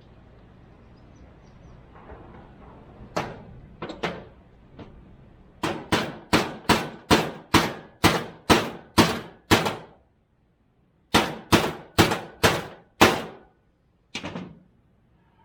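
Hammer blows on metal: a few light taps, then a quick run of about a dozen sharp, ringing strikes, a short pause, five more strikes and one last knock near the end.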